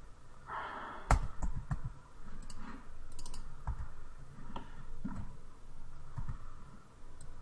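Computer mouse and keyboard clicks, scattered and irregular, the loudest about a second in.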